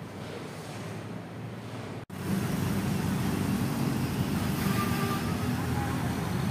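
Steady background hum that drops out for an instant about two seconds in, then gives way to louder outdoor ambience with a low traffic rumble. A few faint steady tones come in near the end.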